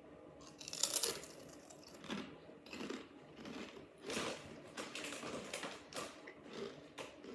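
Smith's Double Crunch potato chips crunching as they are bitten and chewed: a string of short, crisp crunches, the loudest about a second in, then roughly one a second.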